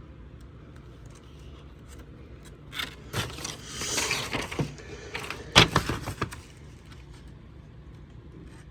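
Handling noise: rustling and scraping with a few sharp clicks, loudest a little past halfway, over a low steady hum.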